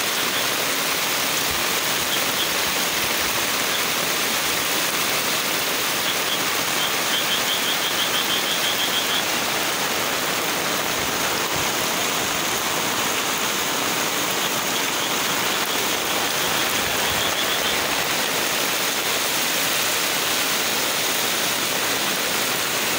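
Steady rushing of fast-flowing muddy floodwater mixed with heavy rain. A faint, rapid high trill comes through twice, about a third of the way in and again past the middle.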